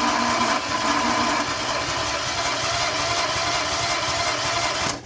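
Starter motor cranking the Renault Clio 1.0 16v engine steadily for a compression test on cylinder 2, cutting off suddenly near the end. The cylinder reads under 100 psi, low compression from a broken head gasket.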